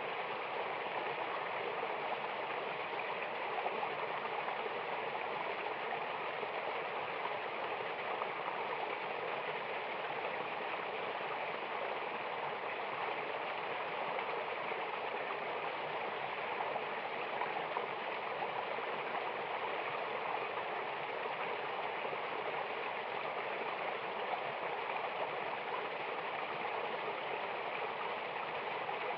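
Mountain waterfall and river water rushing steadily, an even splashing hiss with no break.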